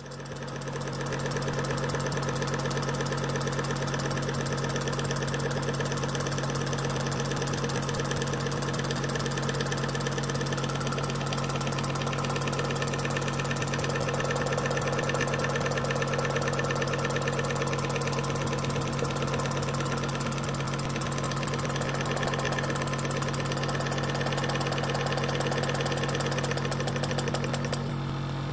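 Peake Engines No. 3 model steam engine with sun-and-planet gearing, running fast on compressed air supplied by a hose: a rapid, even patter of exhaust beats over a steady hum.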